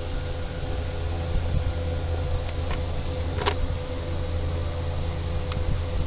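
Steady low hum and hiss, with a few small sharp clicks as a plastic wiring-harness connector is squeezed and worked loose by hand, the clearest about halfway through.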